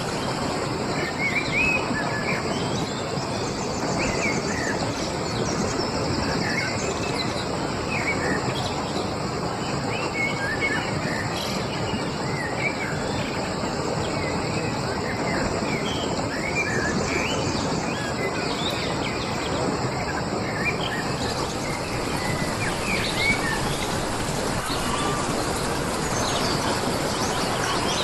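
Songbirds chirping, many short calls scattered throughout, over a steady, even rushing hiss.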